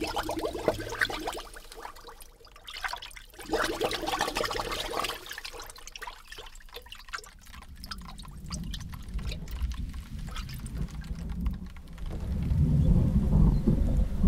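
Water being churned and splashed by hand in a large basin for foley tsunami sounds, close to the microphone: many uneven splashes, pours and drips. Near the end a deep low rumble builds up.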